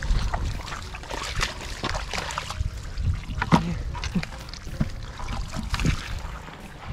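Wet squelching and trickling of shallow water and mud underfoot, with many small scattered taps and knocks.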